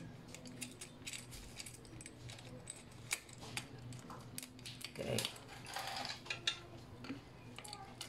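Small metal parts of a quick-release skewer clicking and clinking as the skewer and nut are fitted by hand through a bike rack's mounting clamp, in scattered light clicks.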